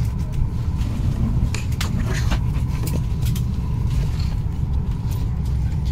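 Steady low rumble of a Boeing 737 MAX 8 passenger cabin, with paper rustling and soft clicks as the in-flight menu is taken out and its pages turned, about two seconds in and again a little later.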